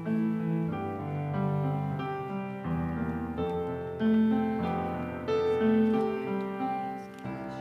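Piano playing a slow piece of held chords, the notes changing about once a second.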